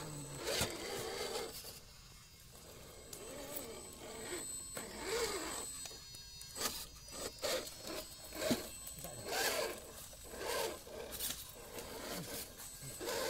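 Radio-controlled scale crawler clawing up a steep bank of loose dirt: its tyres scrape and crunch on the soil in a run of short gritty scrapes, over a thin high whine from its small electric drivetrain in the first half.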